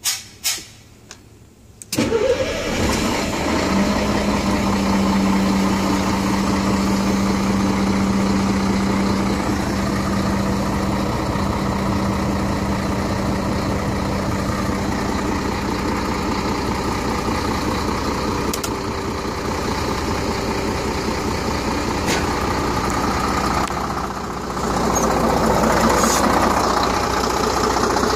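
Scania 114G 340 truck's 11-litre six-cylinder diesel cranked and started after a few clicks, catching about two seconds in, then idling. A steady hum sounds over the engine for several seconds after the start, and the engine runs a little louder over the last few seconds.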